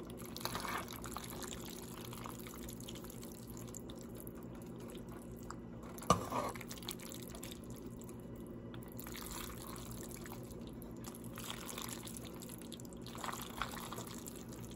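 Metal tongs tossing fettuccine Alfredo with chicken and shrimp in a pan, making soft, wet, sloppy stirring sounds. A sharp clack comes about six seconds in, and a steady low hum runs underneath.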